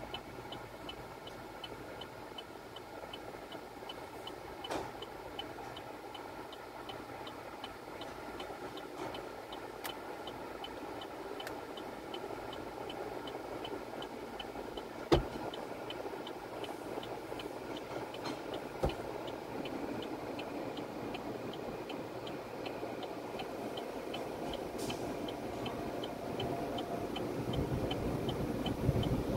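Car-wash tunnel equipment heard from inside the car's cabin: a steady mechanical noise with an even, fast ticking and a few sharp knocks, the loudest about halfway through. Near the end it grows louder as the cloth brushes reach the windshield.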